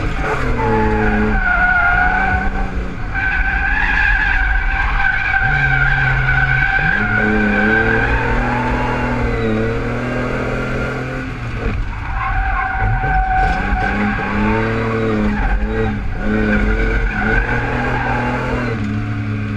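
BMW E30's engine revving up and down repeatedly while the car drifts, with long tyre squeals from the sliding tyres, heard from inside the cabin. The squeal breaks off for about a second near the middle, then resumes.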